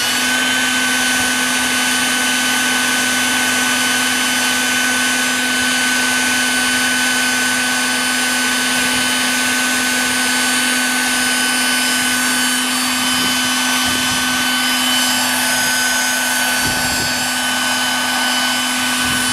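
Radio-controlled MD900 scale model helicopter with a blowhole (NOTAR-style) tail, running at a steady governed headspeed after its spool-up. A steady whine with several fixed tones over the hiss of rotor and tail-fan air.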